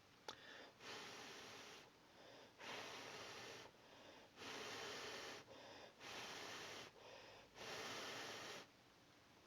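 A person breathing close to the microphone: five airy breaths about a second long, evenly spaced, each followed by a softer, shorter one.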